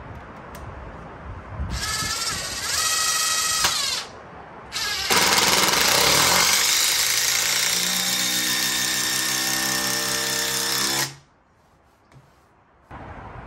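Ryobi cordless driver sinking a long HeadLOK lag screw into stacked Douglas fir timbers, in two runs: a short one about two seconds in, then a longer steady one of about six seconds that cuts off suddenly near the end.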